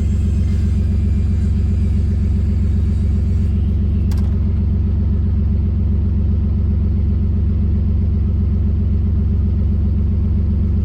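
Ford Contour engine running steadily with a deep, loud exhaust note; the exhaust is leaking and needs repair.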